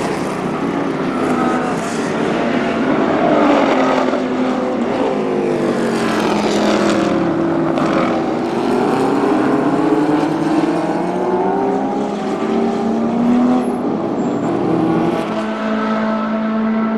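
Porsche 917 K's air-cooled flat-twelve racing engine running hard, its pitch rising and falling as it goes by, settling into a steady note near the end.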